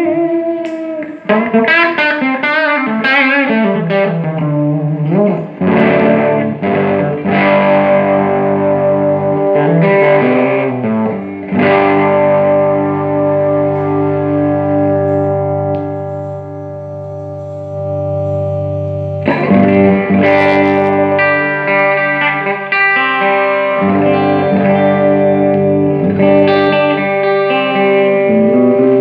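Electric guitar played through a Fender Blues Junior tube combo amp. Notes with string bends and vibrato open the passage, followed by held chords left ringing and fading, then a new chord struck about two-thirds of the way through.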